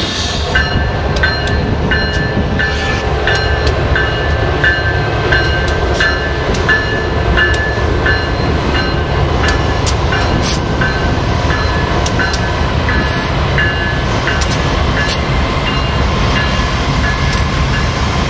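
A train rolling past with a steady rumble and sharp wheel clicks over the rail joints. A bell rings steadily alongside, about one and a half strokes a second, fading out after about twelve seconds.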